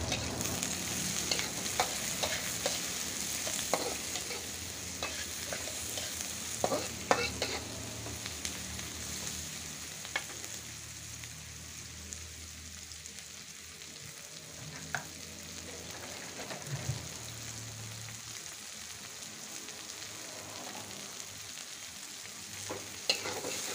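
Sliced onions and shallots sizzling in oil in a metal wok, with a metal spatula scraping and clinking against the pan now and then, more often in the first several seconds and again near the end.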